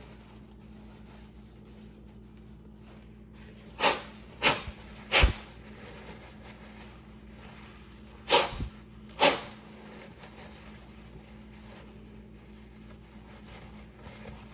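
Towel wiping rubbing alcohol and oil off a pistol slide's optic mount: five short swishes, three close together about four seconds in and two more about four seconds later, over a faint steady hum.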